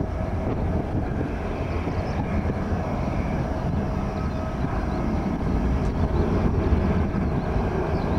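Airbus A300-600R airliner's twin turbofan engines at climb power just after takeoff: a steady low rumble with a faint steady whine running through it.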